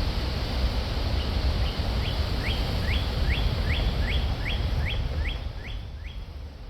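A bird calling a steady series of about a dozen short rising notes, a little over two a second, over a steady low rumble.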